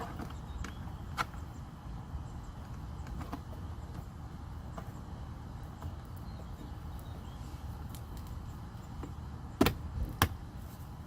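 Scattered light clicks of plastic and a screwdriver, then two sharp snaps about half a second apart near the end: the plastic retaining clips of a Subaru dashboard trim panel popping loose as it is pulled out. A low steady hum sits underneath.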